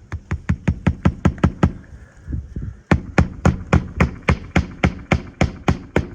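Hand hammer driving roofing nails into a replacement asphalt shingle: quick, even blows, a run of about nine, a short pause, then a longer run of about fourteen.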